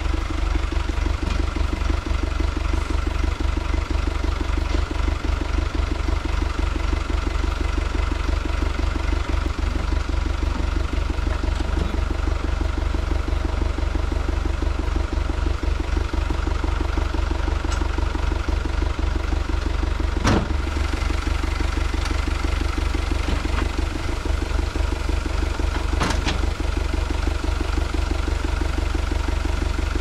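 Tractor engine idling steadily, with two sharp knocks several seconds apart in the second half.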